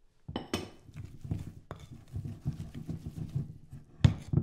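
Almond cream (frangipane) being beaten by hand in a ceramic mixing bowl on a wooden worktop: an irregular run of soft knocks and thuds, about three a second, with scraping between, and the loudest knocks near the end.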